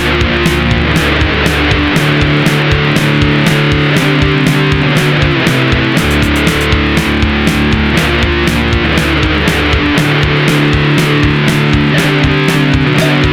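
Instrumental rock music: electric guitar over a steady drum beat.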